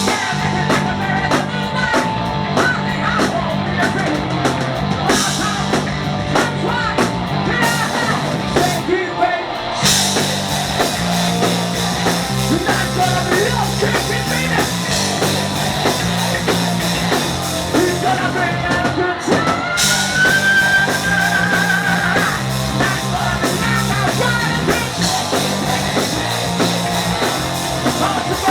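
Live rock band playing loud: drum kit, distorted electric guitars and a driving bass guitar line under a sung, at times shouted, lead vocal. The cymbals come in fuller about ten seconds in.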